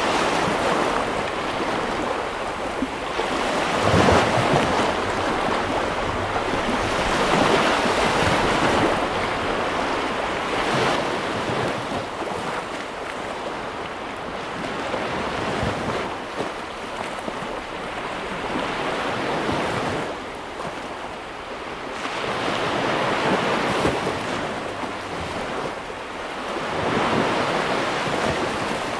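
Sea waves breaking and washing on a shore, the surf rising and falling in a swell every three to four seconds, with some wind on the microphone.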